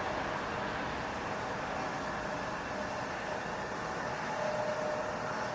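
Jet engine noise of a departing Boeing 777-200ER airliner: a steady rush with a faint whine, slowly fading.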